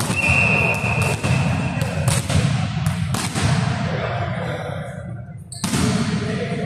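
A referee's whistle blown in one steady blast of about two seconds, then a volleyball bounced on the gym floor a few times and struck hard on the serve near the end, over low chatter in the hall.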